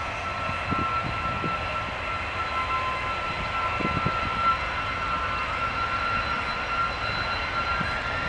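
Jet2 airliner's jet engines on a ground engine test run, running at a steady power: a continuous roar with high steady whining tones. A second whine rises in pitch near the end.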